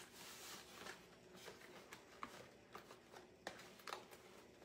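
Near silence with faint rustling and a few light clicks and taps as craft supplies are handled.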